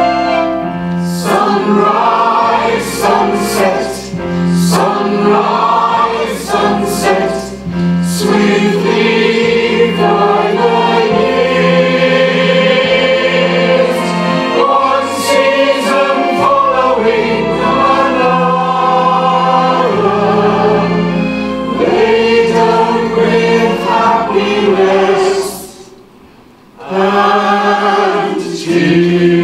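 A stage cast singing together as a choir in phrases with held notes; the singing breaks off for about a second near the end, then resumes.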